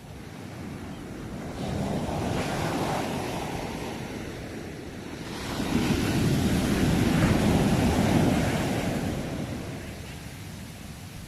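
Sea waves breaking and washing onto the shore: two surges of surf, the first building about two seconds in and a louder one from about five and a half seconds, each swelling and then fading away.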